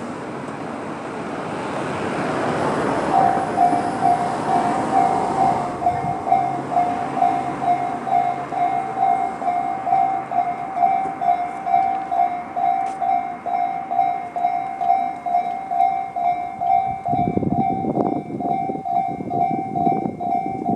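Japanese railway level-crossing alarm, the Tobu 'sound C' electronic bell, starts about three seconds in and rings on steadily as a repeating ding about twice a second. A rushing noise fades over the first few seconds.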